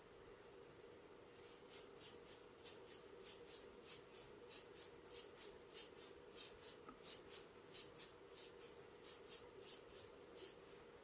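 Quick, rhythmic rubbing strokes of a head massage, about three a second, starting a second or so in, over a faint steady hum.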